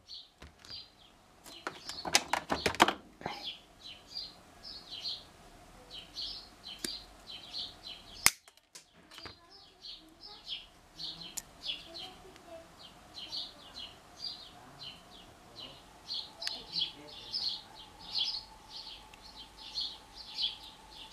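A bird chirping over and over, short high chirps about two a second. About two seconds in there is a quick run of sharp clicks, and a single click comes around eight seconds.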